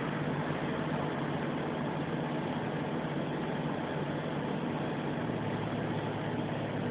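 A steady low mechanical hum, engine-like, over an even background hiss, unchanging throughout.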